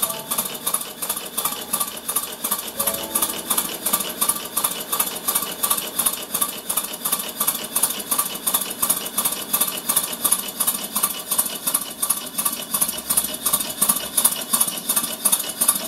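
Miniature live-steam locomotive chassis running on blocks, its wheels, coupling rods and valve gear turning, with a steady rhythmic hissing beat of about four pulses a second.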